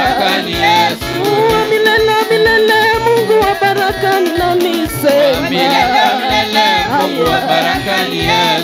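Swahili gospel praise-and-worship song: voices singing over instrumental accompaniment with a steady beat.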